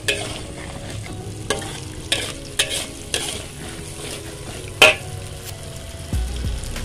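Metal spatula stirring and scraping food frying in a metal wok over sizzling oil, with several sharp clanks of the spatula against the pan, the loudest about five seconds in.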